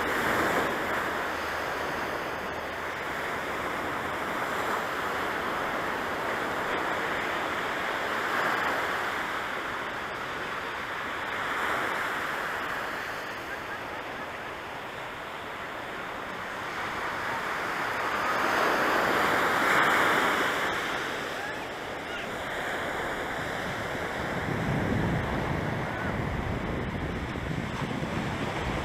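Ocean surf: waves breaking and washing up a sandy beach, in slow swells every few seconds, the loudest about two-thirds of the way through.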